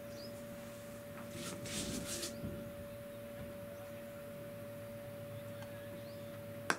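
Steady high hum over faint open-ground noise, with a brief hiss about two seconds in. Near the end comes a single sharp crack: a cricket bat striking the ball.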